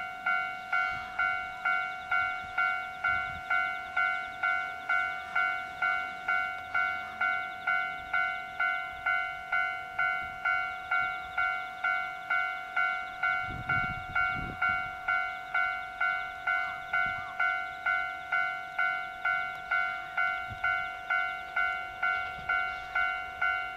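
An older-type station train-approach alarm on a platform horn loudspeaker: one electronic bell-like tone struck over and over, a little more than twice a second, each ring fading quickly. It signals that a train is about to arrive.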